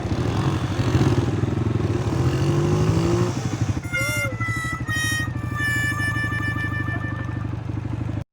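ATV engine running, its pitch rising a little before it drops back to a steady idle about three seconds in. From about four seconds in, a few high, steady tones sound over it.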